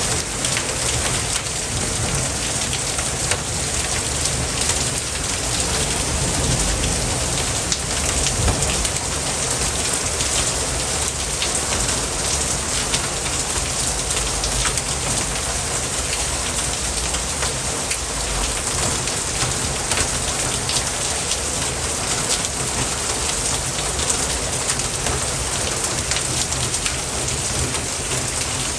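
Steady rain falling, an even hiss with many small drop ticks, holding at one level throughout.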